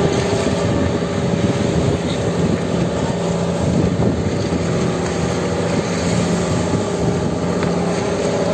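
Outrigger fishing boat's engine running steadily at a constant pitch, over a hiss of water rushing past the hull.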